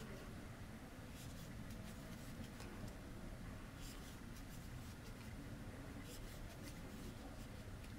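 Faint scratching and ticking of a metal crochet hook drawing white yarn through stitches, in small irregular clusters, over a steady low room hum.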